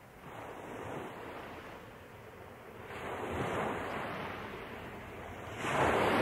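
Ocean surf: waves washing in and ebbing away in slow swells every two to three seconds, the loudest swell near the end.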